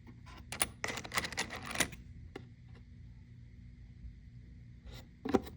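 Loose metal wood screws clicking and clattering against each other as they are handled. There is a dense run of clicks for about a second and a half, then a few scattered clicks, then another short clatter near the end.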